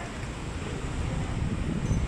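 Steady low rumbling background noise, with a light knock near the end.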